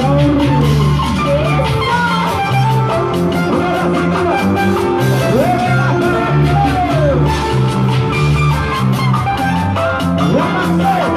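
A live band playing Latin dance music, with a steady repeating bass line and a lead melody that bends up and down in pitch.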